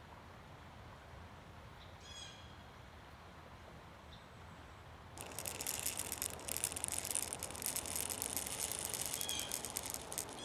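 Black powder being poured from a small spout into the muzzle of a 20-gauge flintlock fowler, a steady grainy hiss of fine ticks that starts about halfway through. A short bird chirp comes faintly about 2 s in.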